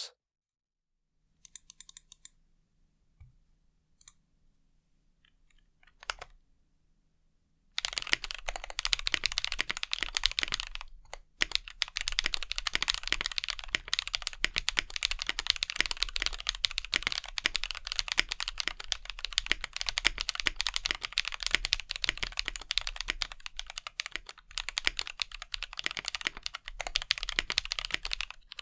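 Mechanical keyboard with lubed and filmed Drop Holy Panda tactile switches and thick ABS GMK keycaps being typed on: a few scattered key presses, then fast continuous typing from about eight seconds in, with one brief pause.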